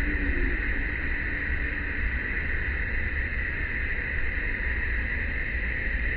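Steady outdoor ambience: a continuous, even high-pitched drone over a low rumble, with no distinct events.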